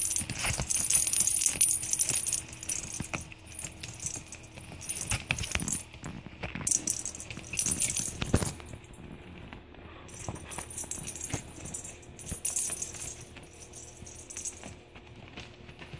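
Bell inside a plastic cat-toy ball jingling and rattling in bursts as kittens bat at it, with scattered soft knocks. The jingling pauses briefly a little past the middle, then resumes.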